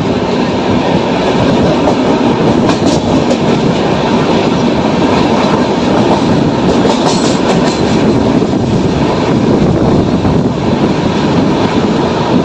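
Passenger express train running at speed, heard from inside the coach at the window: a loud, steady rumble of the wheels on the rails, with a few sharper clacks about three and seven seconds in.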